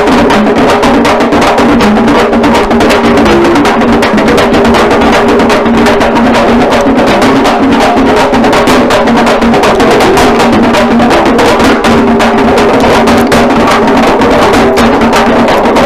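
Fast, dense drumming on parai frame drums, played continuously at a steady loudness, with a steady low pitched tone running underneath the strikes.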